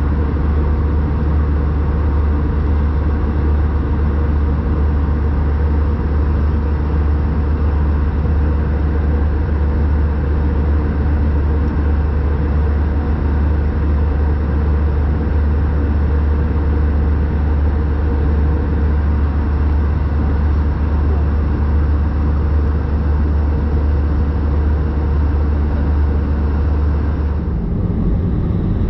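Airbus A320 cabin noise in flight: a steady, deep rumble of the engines and airflow. About a second before the end, the deepest rumble drops away and a lower, steadier hum takes over.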